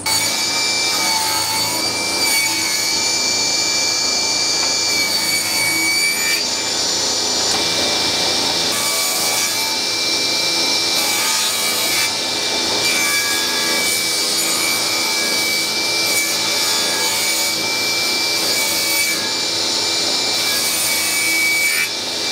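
Table saw running with a steady high whine while ripping wooden strips lengthwise in several passes; the cutting noise swells and eases as each piece is fed through the blade.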